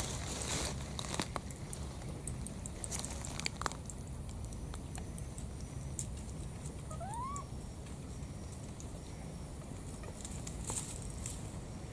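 A single short rising squeak about seven seconds in, a baby monkey's call, over steady outdoor background noise with scattered light clicks and rustles from the stems and leaves it climbs among.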